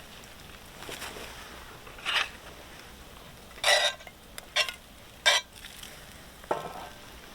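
Cookware being handled: about five short scrapes and clinks of a utensil against a pot, spread over several seconds, over a faint steady background.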